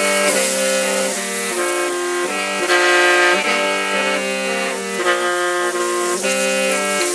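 Hmong qeej (lusheng), a bamboo free-reed mouth organ, playing without a break. Several pipes sound together in held chords that change about once a second.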